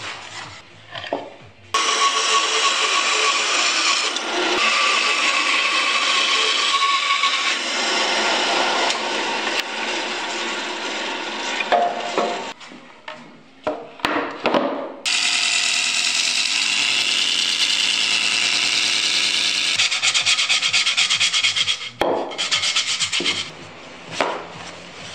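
Bandsaw cutting a circle out of a wooden board: the blade hisses steadily through the wood in two long stretches, with a few short knocks between them and quieter handling near the end.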